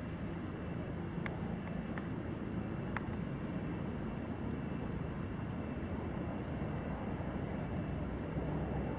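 Steady, continuous high-pitched insect chorus over a low background rumble, with a few faint ticks in the first three seconds.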